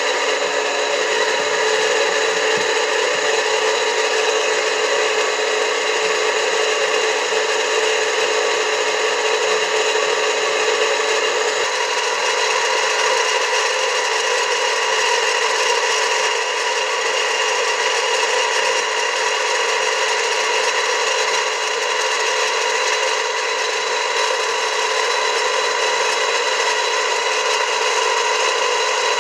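Household water pump motor running with a loud, steady grinding rasp: the abnormal noise the motor has developed. Its tone shifts slightly about twelve seconds in.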